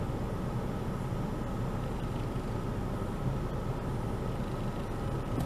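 Car idling, heard from inside the cabin as a steady low rumble.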